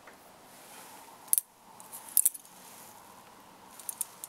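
Thin metal rods with brass-capped ends clinking against each other as a bundle of them is handled, a few scattered sharp clicks. They are the support rods of a Shooting Chrony F-1 chronograph.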